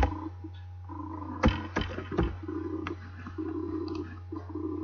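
Computer keyboard keys tapped a few times in the first three seconds as a name is typed, sharp separate clicks. Short spells of a low hum come and go between and after them, over a steady mains hum.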